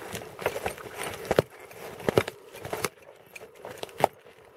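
Irregular sharp clicks and knocks with light rustling, thinning out after about three seconds.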